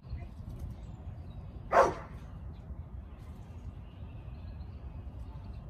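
A dog barks once, short and loud, about two seconds in, over a low steady rumble.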